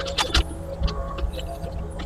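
Excavator's diesel engine running steadily with a low drone, while a quick string of sharp metal clanks and knocks comes from the machine at work on the concrete and debris.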